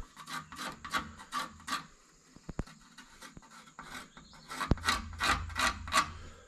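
Back-and-forth strokes of a hand tool working wood, about three a second. One run of strokes comes in the first two seconds, then a louder run follows after a pause.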